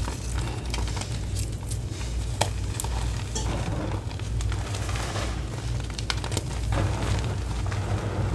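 Hands squeezing, scooping and pressing into a pile of loose crushed gym-chalk and cornstarch powder, a soft crunching texture with many small sharp clicks, over a steady low hum.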